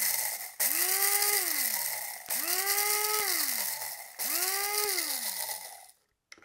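Krups electric blade coffee grinder pulsed in short bursts, grinding a tablespoon of dry rice to scour out coffee residue. Each press spins the motor up to a whine with the rice rattling against the blade, and the pitch falls as the motor coasts down on release. There are three fresh presses and the end of an earlier one, and the last winds down near the end.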